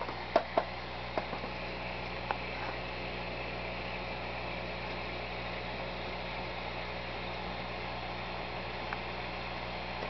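Steady low hum and hiss of running fish-tank equipment, with a few light clicks in the first couple of seconds.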